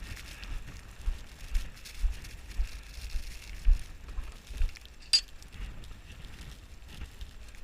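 Footsteps tramping through snow, about two a second, over a low steady wind rumble on the microphone, with one sharp click about five seconds in.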